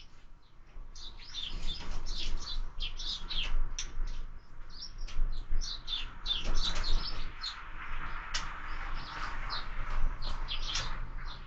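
Sparrows chirping at a feeder: a dense run of short, high chirps from several birds, beginning about a second in.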